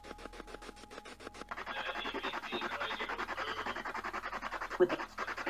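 Playback of a static-filled EVP recording: a rapid fluttering hiss, chopped many times a second, that changes texture about a second and a half in, with a sharp click near the end.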